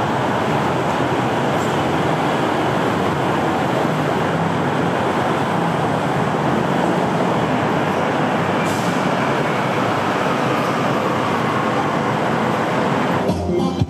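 Steady, loud noise of a vehicle in motion, without a break.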